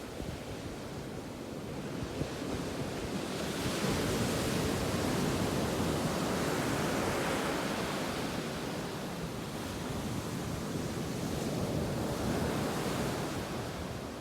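Ocean waves breaking and washing up the beach, the surf swelling to a peak about a third of the way in and again near the end, with some wind on the microphone.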